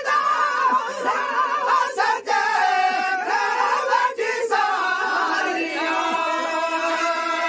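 Unaccompanied group of men singing a Sindhi molood, a devotional chant. Several voices hold steady notes beneath a wavering lead melody.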